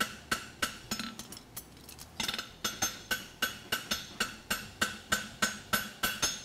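Hammer striking a red-hot steel horseshoe on the anvil horn in a quick, steady rhythm of about four blows a second, each with a short metallic ring, spreading the shoe's branch to widen it. The blows go lighter for a moment about a second and a half in, then pick up again.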